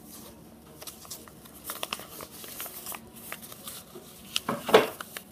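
Origami paper rustling and crackling as it is folded and creased by hand, in scattered short crinkles, the loudest near the end.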